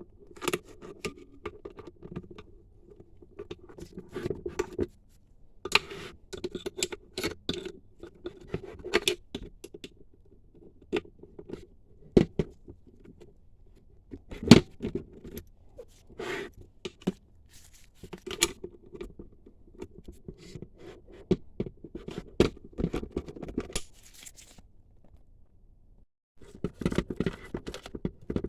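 Hand tools and metal parts clinking, clicking and scraping in irregular bursts as an 8 mm bolt is worked loose.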